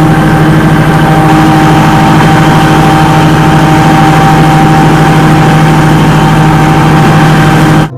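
Steady motor running at a constant pitch, a loud hum with hiss, that cuts off suddenly near the end.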